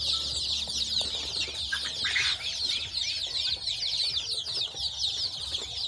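A brood of five-day-old local (desi) chicken chicks peeping together: a dense, continuous chorus of short, high, falling chirps.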